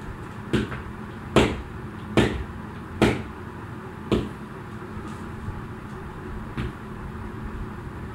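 Jump rope skipping: a run of sharp slaps as the rope and feet hit the floor, about one a second at first, then only once more in the second half, over steady background noise.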